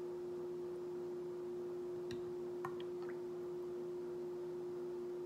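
A steady low electrical hum, with a few faint clicks about two to three seconds in.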